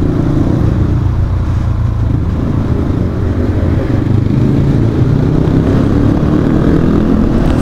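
Dirt bike engine running steadily while riding along the trail, a dense low rumble.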